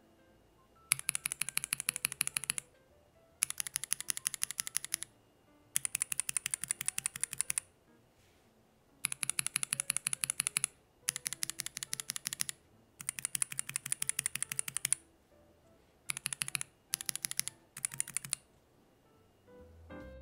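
Tactile mechanical keyboard switches (Ceptify Polar Panda, Drop Holy Panda and Drop Holy Panda X) under GMK keycaps on a small three-key board, pressed in rapid runs of clacks. There are six runs of one and a half to two seconds with short pauses between them, then three shorter runs near the end.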